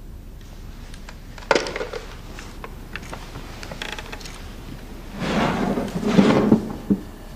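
A wooden cabinet being handled: a sharp knock about one and a half seconds in, then near the end a loud stretch of scraping and rattling wood ending in a click.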